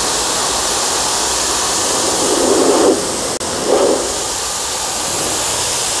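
QPT by StarQ QT-30 commercial pressure washer's high-pressure water jet spraying mud off a car's door panel: a loud, steady hiss of water blasting against the bodywork.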